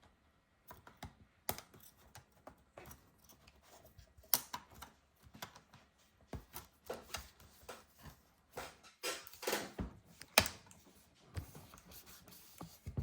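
Irregular small clicks, taps and scrapes of hand tools and parts being worked on an opened MacBook Pro laptop. There is one sharper knock a little past the middle.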